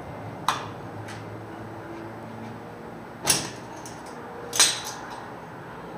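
Metal tools knocking and clanking against a dump truck's wheel hub and brake parts. There are four sharp knocks, and the last two are the loudest, each with a short ringing tail.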